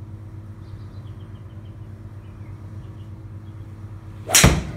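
A golf swing with a 2-hybrid: the club whooshes down and strikes the ball with one loud smack about four seconds in, and the ball drives into the simulator screen.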